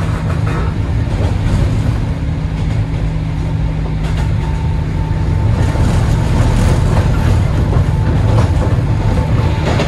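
JR 103 series electric train's MT55 DC traction motors running at speed, heard from inside the car over the rail noise. The motor sound is a steady hum, and a higher tone joins it about four seconds in.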